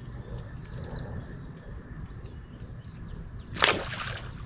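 Outdoor ambience with a steady low rumble and a faint steady high hum. A single bird chirp falls in pitch about two seconds in, and a sudden, short, loud noisy burst comes about three and a half seconds in.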